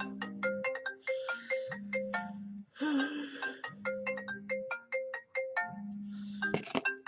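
Phone ringtone: a melodic tune of quick plucked notes repeating over and over, with a low buzz coming in bursts beneath it. The call goes unanswered.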